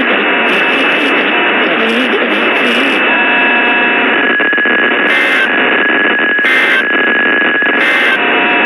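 NOAA weather radio hissing with loud static. Near the end come three short bursts of data tones about a second and a half apart, typical of the Emergency Alert System end-of-message code that closes a warning.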